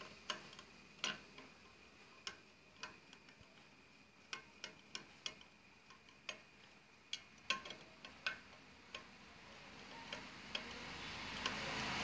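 Screwdriver driving a small screw into a metal bracket: sparse, irregular sharp metallic clicks, with a rushing background noise growing near the end.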